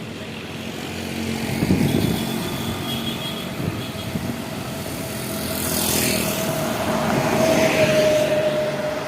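Buses in a convoy passing on a road: engine rumble and tyre noise rise and fall as each one goes by, with a steady tone swelling in the second half.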